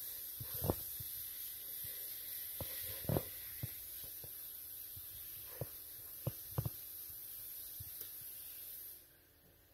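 Faint handling noise: a few soft, scattered taps and clicks as a small printed plastic part is turned in the fingers close to the phone, over a steady high hiss that drops away near the end.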